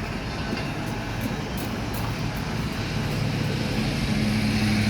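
An engine running with a steady low hum that grows louder from about three seconds in.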